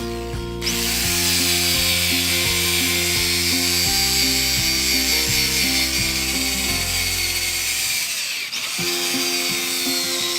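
Background music with changing bass notes, over the steady high-pitched whine of a running power tool that starts about half a second in and dips briefly near the end.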